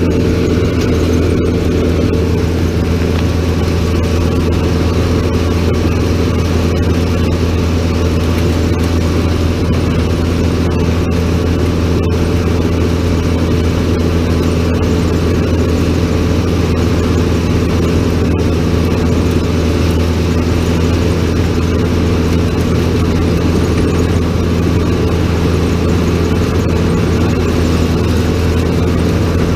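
Grape harvester's engine and picking machinery running steadily while harvesting, a constant low drone that holds the same pitch throughout.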